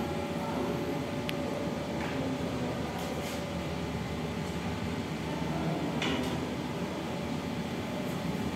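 Steady room hum in a classroom, with a faint steady tone, and a few soft clicks and rustles scattered through it.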